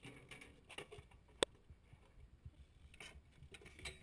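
BMX bike rolling over concrete: faint tyre rumble with scattered small clicks and ticks, and one sharp click about a second and a half in.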